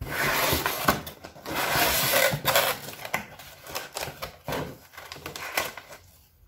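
A small box being opened by hand: packaging and paper rustling and crinkling, with scattered taps and clicks as it is handled, loudest in the first few seconds and dying away near the end.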